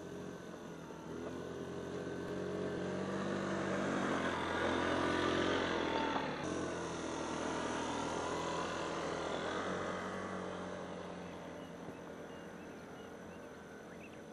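Small motor scooter engine running, getting louder as it comes closer. After an abrupt break it carries on running and slowly fades as the scooter rides away.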